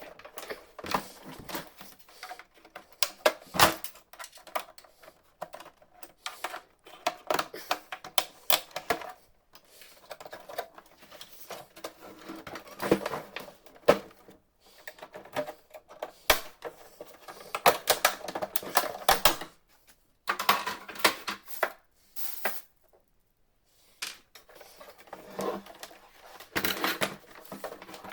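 Irregular plastic clicking, snapping and rattling as the printer's plastic side-cover latches are released and the cover is worked off the frame, with short pauses.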